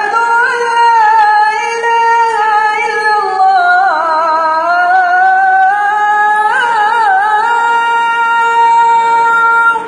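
A young man's voice chanting the Islamic call to prayer (azaan) as one long melismatic phrase. It glides up at the start, wavers through ornamented turns in the middle, settles on a long held high note, and breaks off at the end.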